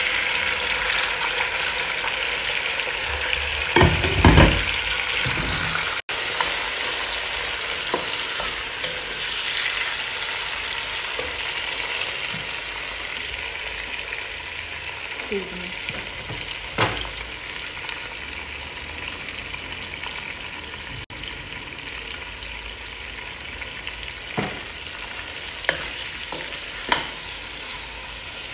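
Fish, onions and peppers sizzling in hot red palm oil in a pot, a steady frying hiss that starts suddenly as the food goes in and slowly eases off. A few sharp knocks against the pot, the loudest about four seconds in.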